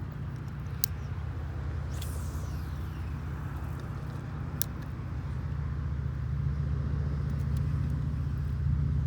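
A motor runs with a steady low hum that grows louder in the second half. Two sharp clicks and a brief high swish sound over it.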